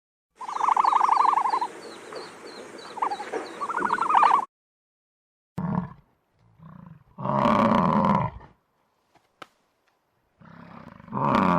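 A string of short animal calls from separate clips, cut together with silent gaps. A long stretch of trilling and chirping is followed by a short call, a louder call, and another call near the end.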